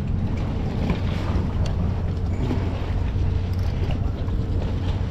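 Steady low rumble of a boat engine, with wind buffeting the microphone.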